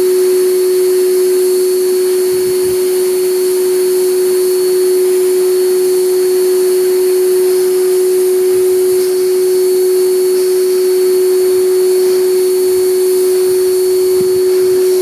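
Steady whine of the air supply driving a paint spray gun, with the even hiss of the gun spraying a mist of finish onto a wooden guitar neck.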